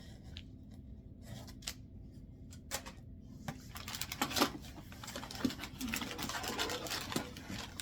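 Plastic lure packaging being handled: scattered light clicks and taps at first, then about halfway through a longer stretch of crinkling and rustling plastic.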